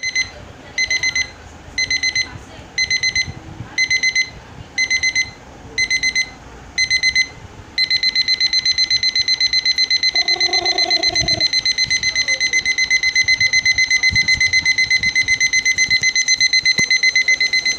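Electronic alarm beeping on a high pitch: about seven short bursts of beeps roughly once a second, then at about eight seconds in it switches to unbroken rapid beeping, the escalating pattern of a digital alarm clock.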